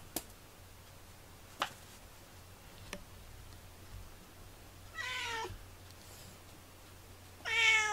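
A domestic cat meowing: one short meow about five seconds in and another just at the end, with a few faint clicks between.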